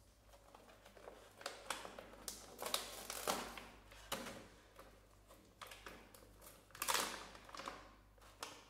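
Foil-lined plastic snack pouch crinkling and crackling as its top strip is torn off and the bag is pulled open by hand, in a series of sharp irregular bursts.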